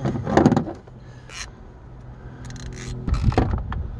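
Handling noise from work on a hand-control linkage at a minivan's pedals: scattered clicks, scrapes and rubbing of metal and plastic parts, with louder clusters just after the start and about three seconds in.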